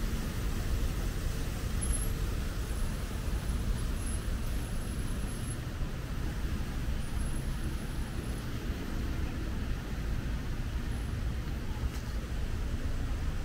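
Steady city street traffic noise: cars and other road vehicles passing.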